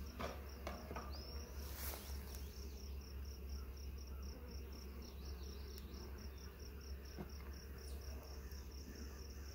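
Rhythmic high-pitched insect chirping, about four pulses a second, from crickets or katydids in the grass. Over it come a few clicks and scrapes, the loudest about two seconds in, as a metal hive tool works the wooden frames of an open nuc box.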